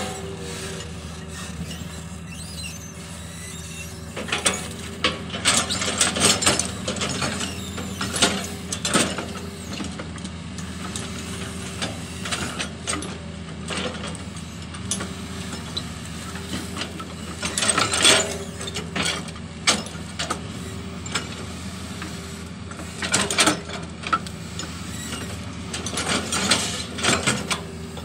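Hitachi hydraulic excavator's diesel engine running steadily, with several spells of metallic clanking and squeaking from the machine's moving parts.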